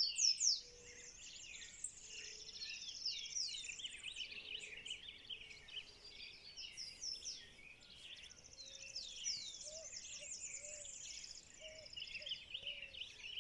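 Dawn chorus: many birds singing and chirping at once in a dense, overlapping tangle of quick high calls. Lower, repeated calls join in over the last few seconds.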